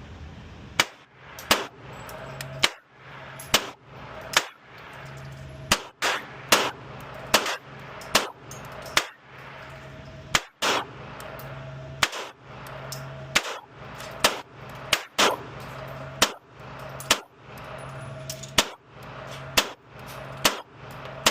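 Canik TTI Combat 9mm pistol fired in a steady string, about twenty shots roughly a second apart. A low steady hum is heard between shots.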